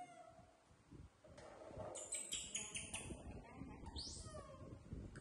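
Baby monkeys giving high-pitched squeaky calls: a quick run of short chirps about two seconds in, then one rising squeal about four seconds in, over soft rustling of handling.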